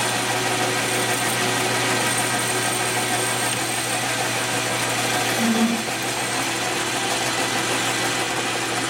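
Metalworking machine tool running steadily with a boring bar cutting a hole in steel, its motor and the cut making a continuous mechanical hum with steady tones; the level eases slightly about six seconds in.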